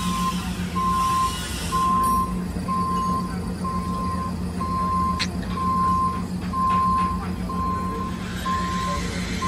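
Telescopic handler's diesel engine running while its backup alarm beeps steadily, about four beeps every three seconds. A single sharp click about five seconds in.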